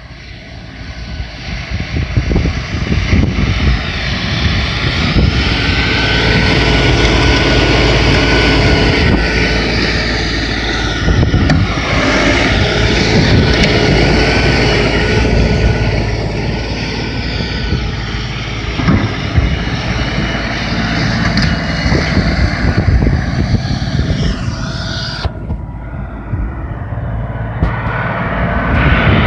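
2017 LS XR4155H tractor's 55 hp diesel engine running steadily while clearing snow, its pitch rising and falling slowly as the revs change, with a steady whine over the engine noise.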